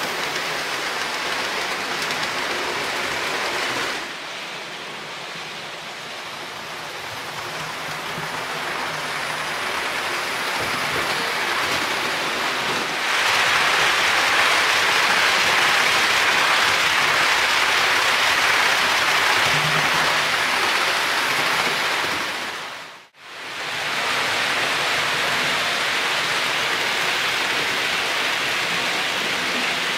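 Märklin HO model trains rolling along the layout's tracks: a steady rushing clatter of small metal wheels on the rails. It swells from about 13 seconds in as a train runs past close by, and cuts out for a moment about three-quarters of the way through.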